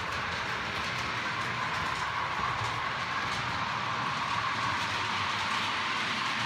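OO gauge model train running on the layout: a steady whirr of motor and wheels on the rails, with a held hum near the middle of the range and no break in it.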